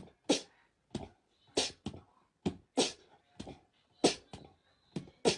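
An animal making a run of short, sharp puffing snorts, about two a second.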